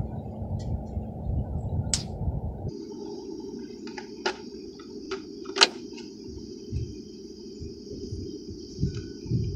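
A few sharp clicks and knocks from hands handling an RC car, the loudest about halfway through, over steady background noise that changes abruptly about a quarter of the way in.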